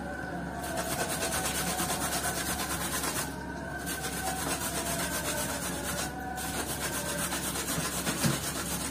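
Pearl onions and green pepper sizzling in oil in a frying pan, a crackly hiss that drops out briefly twice, about three and six seconds in.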